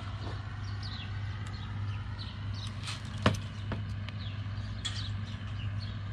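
House sparrows chirping over and over in short high notes above a steady low hum, with a sharp click about three seconds in.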